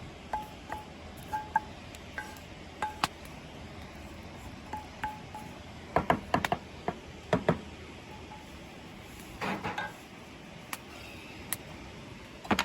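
Scattered light metallic pings and clinks, with clusters of sharp clicks about six, seven and a half, and nine and a half seconds in.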